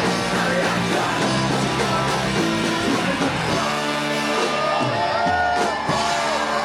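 Ska band playing live at full volume, with singing and shouting over the music. A little past halfway the rhythmic playing gives way to held notes, with voices yelling in rising and falling pitches over them.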